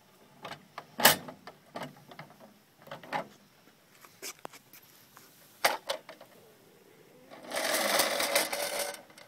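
Pressed-steel Buddy L toy milk truck knocking and clicking as it is handled, then a dense rattle lasting about a second and a half near the end.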